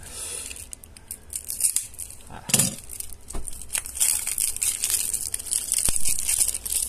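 Clear plastic shrink-wrap being torn open and crinkled on a card deck box, with a louder rustle about two and a half seconds in and dense crackling from about four seconds in.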